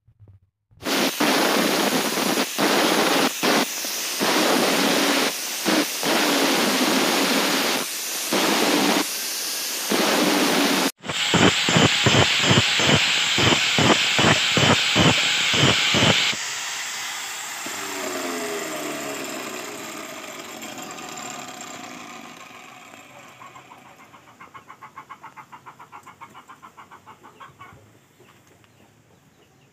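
Angle grinder with an abrasive disc grinding the steel blade of a golok, the grinding noise cutting in and out as the blade is pressed to the disc and lifted. After a break come short rhythmic passes, about three a second. Then the grind stops and the sound dies away gradually.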